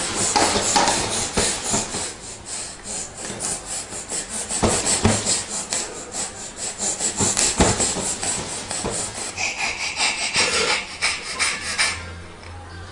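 A baby laughing hard in a long run of quick, breathy, raspy bursts, several a second, going higher-pitched for a couple of seconds near the end.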